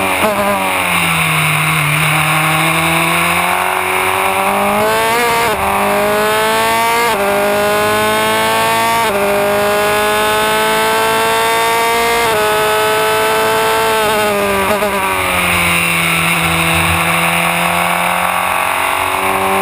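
Formula Renault 2.0 single-seater's 2-litre four-cylinder racing engine at full race pace. It slows for a corner, then pulls up through the gears with several quick upshifts, each a sudden drop in pitch, then slows again for the next corner and picks up speed near the end.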